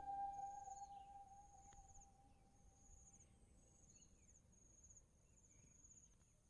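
Faint insects chirping: a short, high trill that repeats steadily, a little more than once a second, while the last note of music dies away in the first two seconds.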